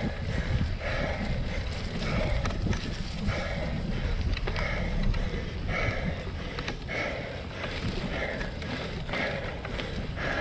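Cyclocross bike being ridden hard over a wet, muddy grass course: a steady low rumble of tyres and wind. Over it comes a rhythmic sound that repeats a little more often than once a second.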